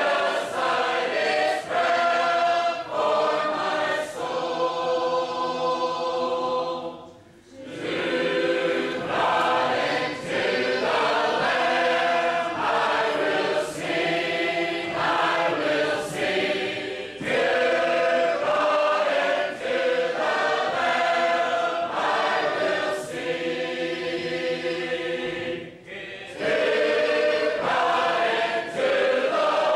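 A large group of shape-note singers singing unaccompanied in full harmony, in sustained chords. The singing breaks off briefly about seven seconds in and again near 26 seconds, between phrases.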